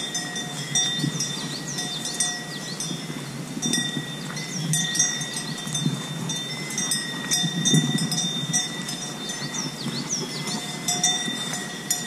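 Cowbells on grazing cattle clanking and ringing, with steady ringing tones and repeated metallic clinks, over a low rumble of a mountain bike rolling across grass.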